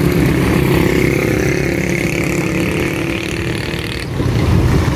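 Road traffic: motor vehicle engines running close by among passing cars and motorcycles, easing a little about four seconds in.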